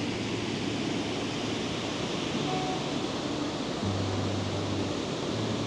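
Large, powerful waterfall: a heavy mass of water pouring down and hitting the rocks below in a steady, unbroken rush.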